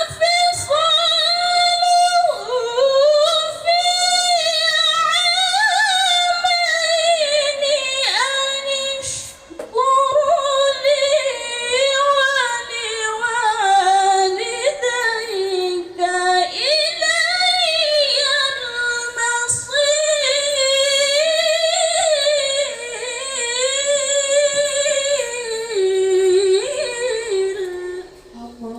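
A woman's solo voice reciting the Quran in ornamented, melodic tilawah style. She holds long drawn-out phrases with wavering, embellished pitch, with one short breath break about nine seconds in.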